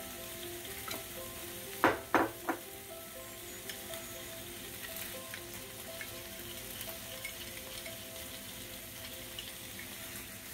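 Onions and capsicum sizzling steadily in a wok over a high gas flame. About two seconds in there are three sharp clinks of utensils and glassware.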